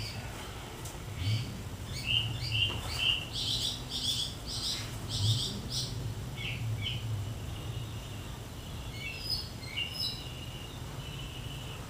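Birds chirping and singing: short high chirps and quick runs of repeated notes, busiest in the first half, with more scattered chirps near the end. A low steady hum sits underneath.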